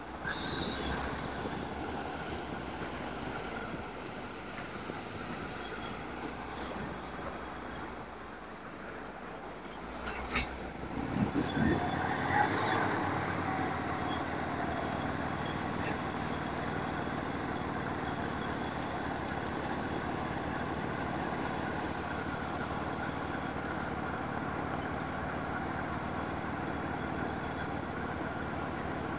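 Excavators and dump trucks working, their diesel engines making a steady mechanical drone. It gets louder and more uneven, with a few sharp peaks, about ten to thirteen seconds in, then carries on steadily.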